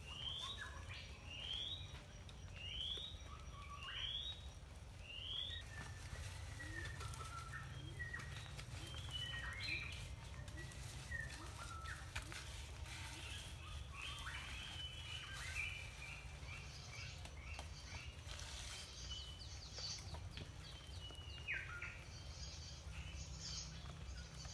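Birds calling: five short rising calls about a second apart in the first few seconds, then scattered chirps and trills, over a steady low rumble.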